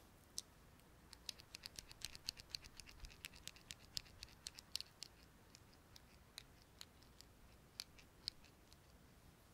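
Light, crisp clicks and taps from a small cosmetic item being handled, a quick uneven run that is thickest in the first half, thins out and stops shortly before the end.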